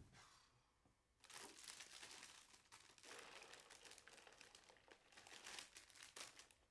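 Faint crinkling and rustling, a dense run of irregular crackles that starts about a second in.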